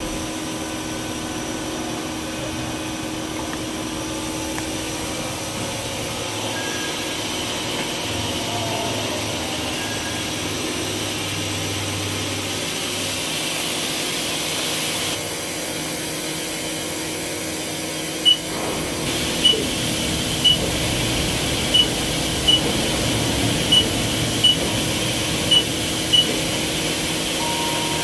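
Haas EC-400 horizontal machining center standing idle with its door open, its fans and pumps giving a steady mechanical hum. From about 18 seconds in, short high beeps sound roughly once a second.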